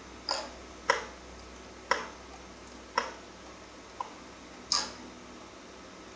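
Six sharp plastic clicks of toggle switches being flicked on a Radiolink AT9 radio transmitter, roughly a second apart; the fourth is fainter.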